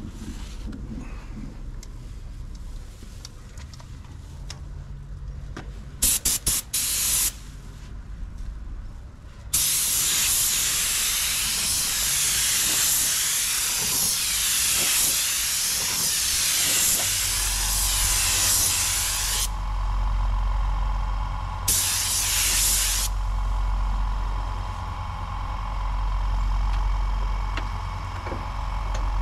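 Compressed-air spray gun spraying clear coat: a few short spurts of hiss, then one long steady hiss of about ten seconds, and another short spurt later. Partway through, a motor starts and runs on with a low steady hum.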